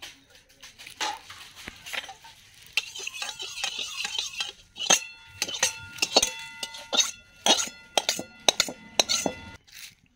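Metal spatula scraping around inside a metal wok (kadai) with a little water in it, first a hissing scrape, then a run of sharp knocks against the pan from about halfway in, each leaving the wok ringing with a clear metallic tone.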